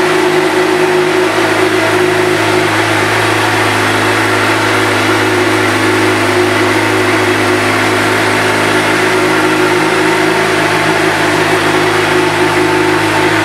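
Suzuki GSX-R750's inline four-cylinder engine idling steadily, its pitch and level unchanging.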